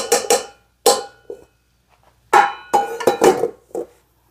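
A spatula scraping and knocking against a stainless steel stand-mixer bowl of cookie dough, each knock setting the metal bowl ringing briefly. Two bursts of quick knocks, one right at the start and another a little past the middle.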